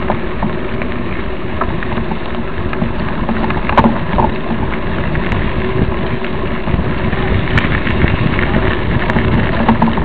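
Mountain bike rolling over a dry dirt trail: a steady crackling rush of tyre-on-dirt noise, broken by scattered sharp clicks and knocks.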